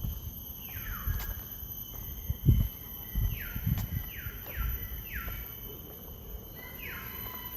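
Common hill myna giving short calls that each slide down in pitch: one about a second in, three in quick succession around the middle, and another near the end. Low thumps, the loudest about two and a half seconds in, sit beneath the calls.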